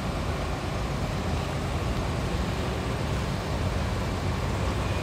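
Intercity bus's diesel engine idling, a steady low rumble with no change in pace.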